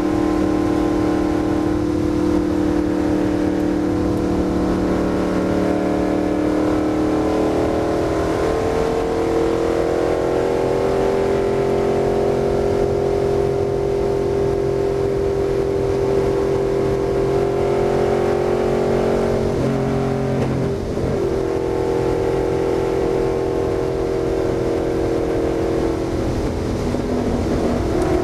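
Stock car's V8 engine running hard at high revs, heard from inside the cockpit. The pitch climbs about a third of the way in as the car gathers speed onto the straight, then holds steady. It falters briefly about two-thirds through and dips again near the end as the car comes into the next turn.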